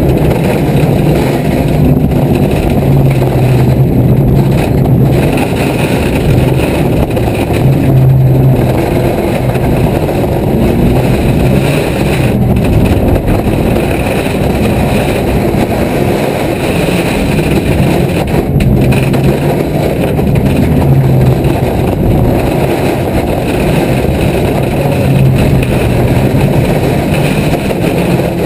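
Car engine heard from inside the cabin, driven hard along a stage road, the revs climbing and dropping repeatedly through gear changes and corners.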